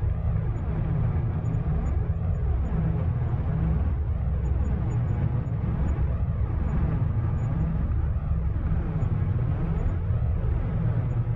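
Designed sci-fi sound effect of an underground alien reactor: a deep, steady low rumble with a sweeping, phasing hum above it that rises and falls about every two seconds.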